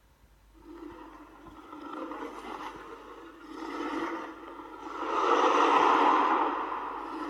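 Godzilla roar sound effect, mixed from the MonsterVerse, Millennium and Heisei Godzilla roars. It is a long, rasping, pitched cry that starts about half a second in and swells in stages, loudest around five to six seconds in.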